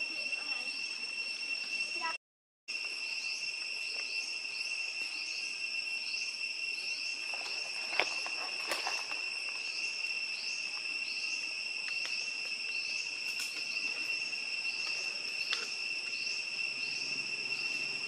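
Forest insects calling: a steady high whine with a rising chirp repeating about every two-thirds of a second. A few sharp clicks sound over it, the loudest about eight seconds in, and the sound cuts out briefly about two seconds in.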